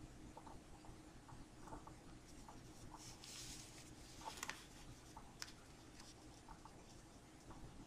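Faint rustling of a narrow paper strip being folded lengthwise and creased with the fingers, with a brief rustle about three seconds in followed by a few soft ticks of the paper.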